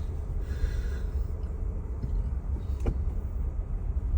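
Steady low rumble of a car driving slowly on a snowy road, heard from inside the cabin, with a single click about three seconds in.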